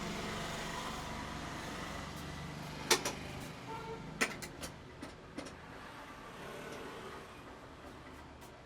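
Road traffic: a vehicle's engine passes with a steady low hum that fades away over the first few seconds. Several sharp taps come in the middle.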